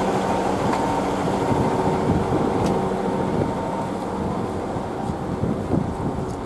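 Class 159 diesel multiple unit pulling away, its underfloor diesel engines running under power over the wheels on the rails. The sound is a steady engine drone that eases slightly near the end as the train moves off.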